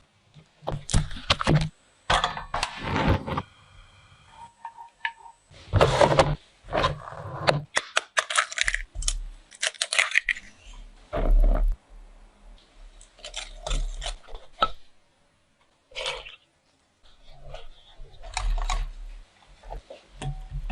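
Irregular clinks, taps and knocks of kitchen utensils and dishes being handled during cake making, with a brief steady tone about four seconds in.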